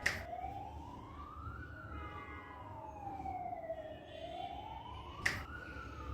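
A wailing siren, its pitch sliding slowly up and down, each rise or fall lasting about two seconds. Two sharp clicks cut through it, one at the start and one about five seconds in.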